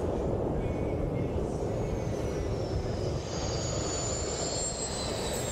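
Small jet turbine mounted on an electric scooter, running under way: a steady roar with a high whine that slides slowly down in pitch. A second, higher whine comes in about halfway through.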